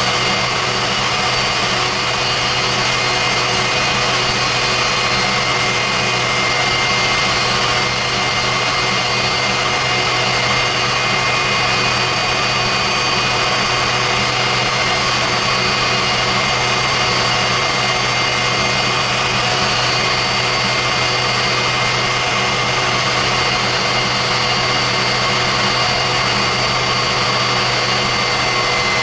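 J34 turbojet running steadily at part throttle, a loud, even rushing noise with a high steady whine. Near the end the whine drops slightly in pitch.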